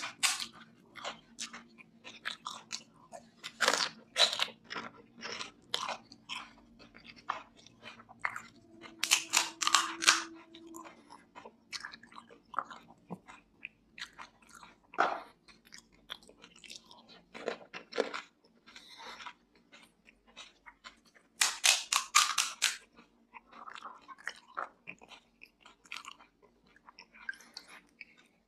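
Close-miked chewing and crunching of pani puri, the crisp hollow puri shells cracking between the teeth. There are two quick flurries of sharp crunches, about a third of the way in and again past the middle.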